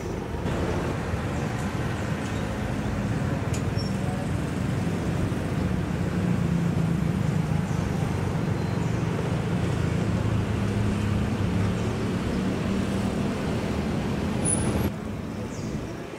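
A CC 201 diesel-electric locomotive's engine running close by, a steady low drone. It cuts off abruptly near the end.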